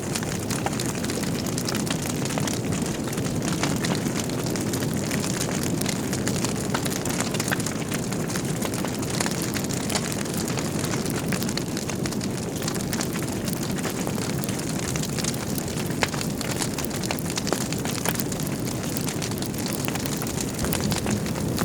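Wood fire burning in a fireplace: a steady low rush of flames with frequent small crackles and pops from the burning logs.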